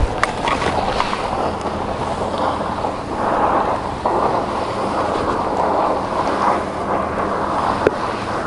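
Steady wind noise on the microphone, with a few faint clicks.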